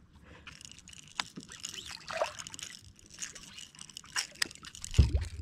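Water splashing and trickling at the side of a kayak while a hooked piranha is brought in, with scattered small splashes and knocks. A dull, louder knock comes near the end.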